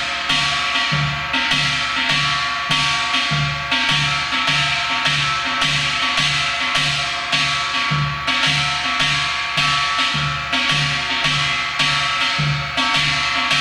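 Janggu (Korean hourglass drum) played with two sticks in the Gyeongsang gut huimori rhythm at a slow practice tempo: an even run of low drum strokes about one and a half a second, with lighter stick strokes between. A steady metallic ringing sounds underneath.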